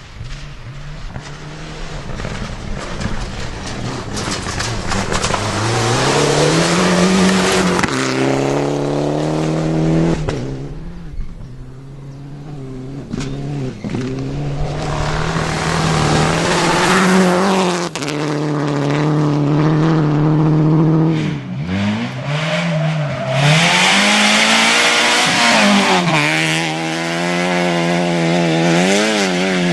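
Rally car engine revving hard, its pitch climbing and dropping again and again as it shifts gears and lifts off. The sound fades for a moment about a third of the way through, then builds again, with a loud hissing rush of tyre and road noise late on as the car comes close.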